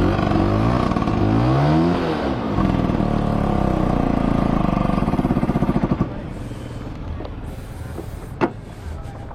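Two-stroke Vespa scooter engine revving unevenly, its pitch swinging up and down. It cuts off suddenly about six seconds in, then a sharp click follows near the end. The bike has a broken spark plug lead that makes the ignition cut in and out.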